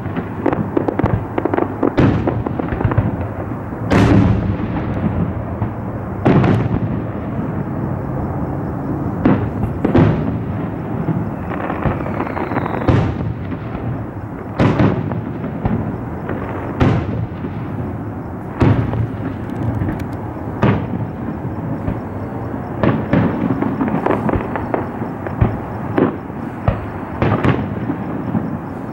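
Aerial fireworks shells bursting, about twenty sharp booms at irregular intervals of one to two seconds, with a continuous rumble and crackle between them.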